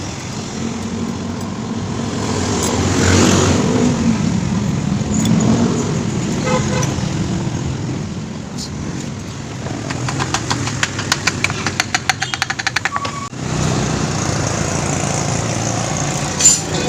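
Road traffic passing, with a vehicle swelling past a few seconds in. About ten seconds in comes a fast run of sharp clicks lasting a few seconds.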